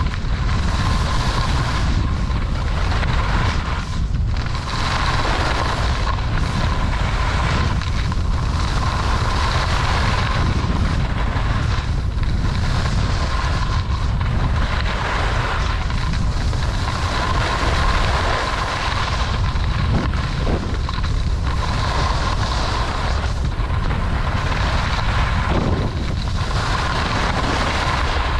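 Wind rumbling on the action camera's microphone at skiing speed, over the hiss of skis sliding and carving on groomed snow, which swells and fades every couple of seconds with the turns.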